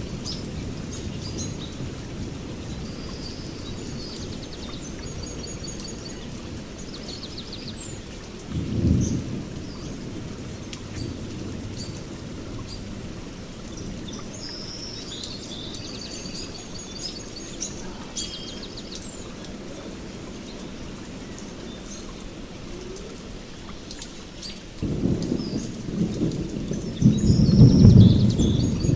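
Thunder rumbling over steady rain, with birds chirping. The rumble swells about nine seconds in and again, louder, near the end.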